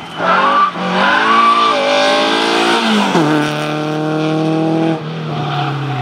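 Renault Clio's engine revving hard, its pitch climbing and dropping several times in quick succession, then dropping sharply about three seconds in and falling slowly as it eases off.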